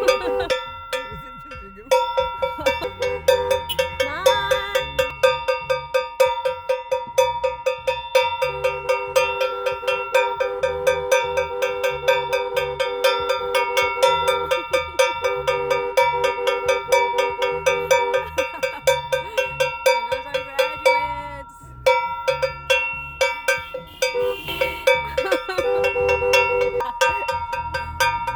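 Hand-held cowbell struck over and over at about three strikes a second, each strike ringing, with two short pauses. Car horns honk at times underneath.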